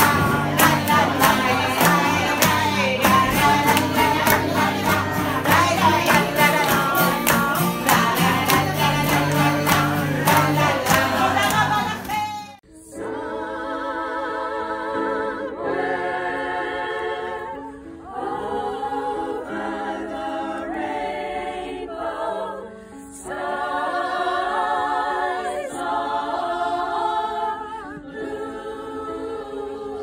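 A woman singing while strumming an acoustic guitar; about twelve seconds in it breaks off and a women's choir takes over, singing in phrases with short pauses.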